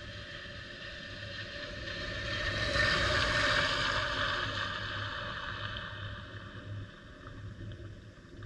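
Pickup truck driving past close by on a gravel road: tyre and engine noise swells to a peak about three to four seconds in, then fades as it moves away. A steady low wind rumble runs underneath.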